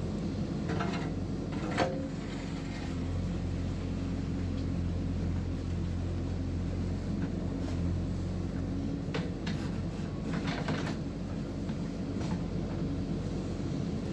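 JCB 3DX backhoe loader's diesel engine running steadily, with a few sharp clanks about a second in and again around nine to eleven seconds in.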